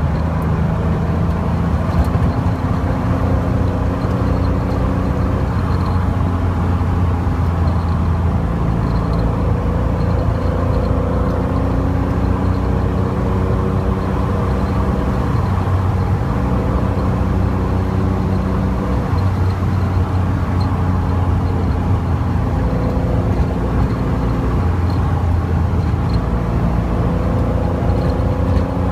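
Car engine running steadily at road speed, with wind and road noise; the engine note shifts in pitch a few times.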